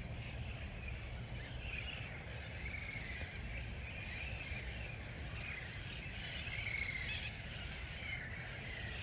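Peahens giving soft, repeated chirping calls, about two a second, with a few louder calls near the end, over a steady low background rumble.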